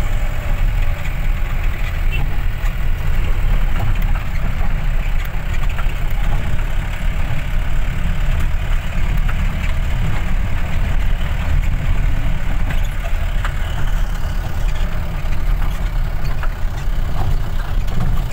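Car engine running with tyres rumbling over a rough gravel road, heard from inside the cabin, with a few scattered clicks and rattles.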